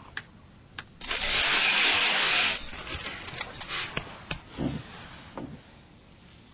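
A loud rasping crunch lasting about a second and a half, after two small clicks, then a run of scattered cracks and crackles with a couple of dull thumps.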